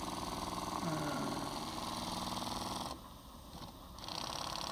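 Microcosm M29 twin-cylinder model steam engine running on steam with a steady, rapid beat. About three seconds in it goes quiet for about a second as the Stephenson reversing gear is thrown over, then picks up again running in reverse.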